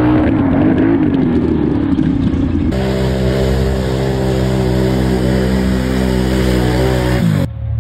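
Can-Am Renegade 1000 XMR ATV's V-twin engine revving hard on a mud drag run. At first the engine note wavers. About three seconds in it gives way to a steady high-revving note, which drops sharply and cuts off near the end.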